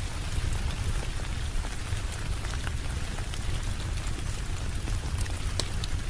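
Steady rain: an even hiss over a deep low rumble, with scattered sharp ticks of individual drops.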